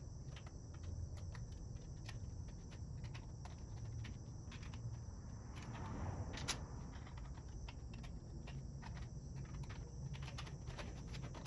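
Faint scattered clicks and taps of hands working at a CNC router's frame and controller box, with one sharper click about six and a half seconds in. Under them run a steady low hum and a thin, steady high tone.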